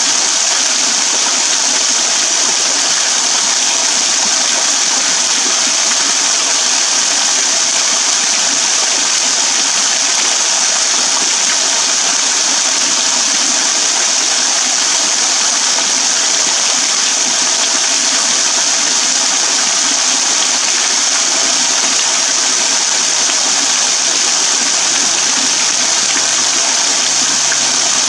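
Small waterfall pouring in thin streams and drops off a rock overhang and splashing into a shallow pool: a steady, hissing splash with no change.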